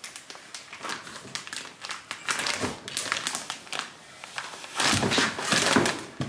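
Packaging crinkling and rustling as a bed sheet set is handled and unwrapped, in irregular crackles that are loudest about five seconds in.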